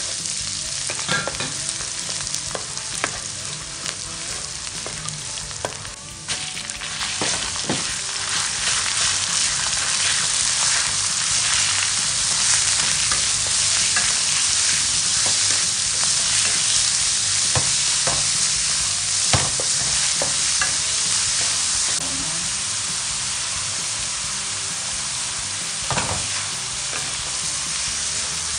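Garlic and ground pork sizzling in oil in a metal wok while a spatula stirs and scrapes against the pan, with scattered knocks of the spatula on the metal. The sizzle gets louder about six seconds in.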